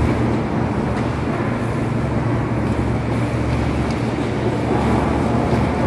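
Steady low hum of a parked electric commuter train standing at the platform with its onboard equipment running.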